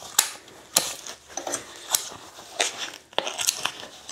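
White foam packing being worked off an electric scooter's handlebar: crinkling and rustling with a string of sharp clicks and taps, about one every half second.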